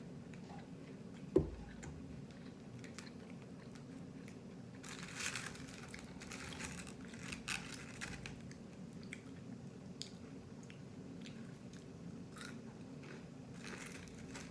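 Close-up biting and chewing of crunchy fried food, with bursts of crunching in the middle and again near the end. A single sharp thump about a second and a half in is the loudest sound.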